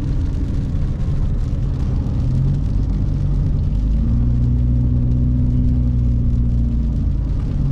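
Car engine and road noise heard from inside the cabin while driving, a steady low rumble; the engine hum grows a little louder and steadier about four seconds in.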